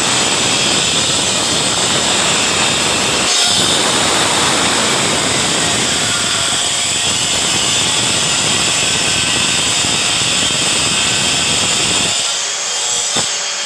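Hilti wall chaser with diamond blades grinding a groove into a plastered masonry wall, a loud steady cutting noise with a brief dip about three seconds in. Near the end the cutting noise drops away, leaving a steadier high whine.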